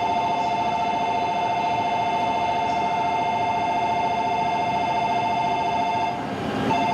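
Station platform's electronic train-approach warning tone, a steady rapidly pulsing two-pitch alarm, with a short break about six seconds in. A low rumble from the Shinkansen pulling in lies beneath it.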